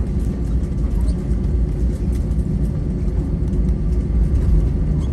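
Airliner cabin noise: a steady low rumble of engines and wheels as the plane rolls along the ground after landing, with a few faint rattles and clicks.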